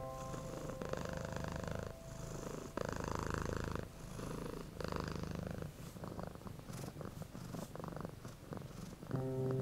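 A cat purring in slow, even swells, each lasting about a second.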